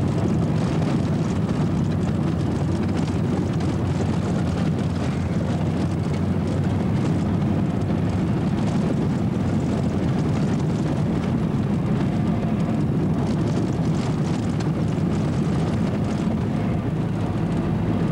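Steady engine and road noise of a moving vehicle, heard from inside the cabin as a constant low rumble.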